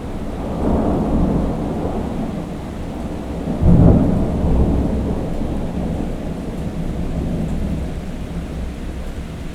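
Thunder rumbling through heavy rain, with a louder crack about three and a half seconds in that slowly rolls away.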